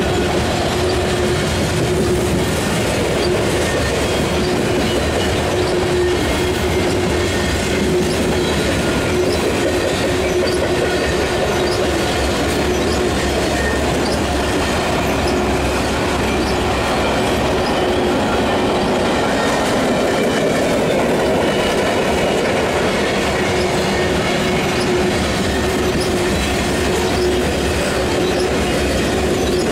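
Freight train of covered hopper cars rolling steadily past, steel wheels rumbling and clacking on the rails, with a steady humming tone under it.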